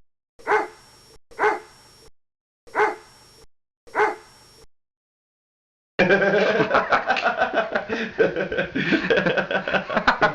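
A dog barking four times, single barks about a second apart, each cut short by silence. About six seconds in, a loud, busy jumble of sound starts.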